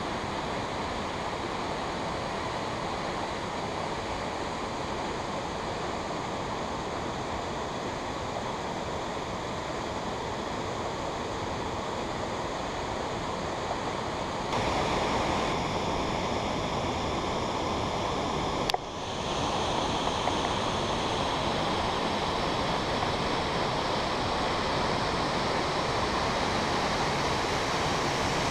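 Steady rush of water pouring from a dam's open spillway gate into the tailrace. It steps up in loudness about halfway through, and a single sharp click comes a few seconds later.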